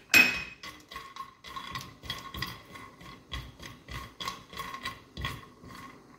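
Raw peanuts tipped into a dry metal kadhai clatter loudly at the start. A spatula then stirs them for dry roasting, knocking and clinking against the pan about twice a second, with each knock ringing briefly in the metal.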